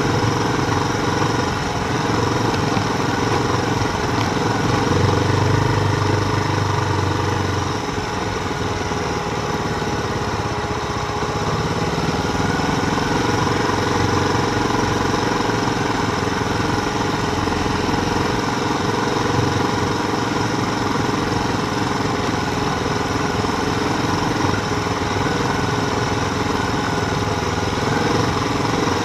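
Continuous rolling noise of a mountain bike being ridden, a steady rumble and hiss picked up by the bike-mounted camera, with a brief low swell about five seconds in.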